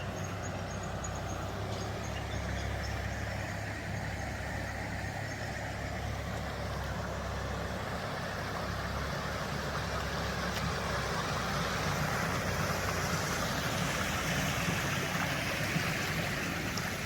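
Water rushing steadily over a weir, a continuous roar of falling water. It grows a little louder and brighter over the last few seconds.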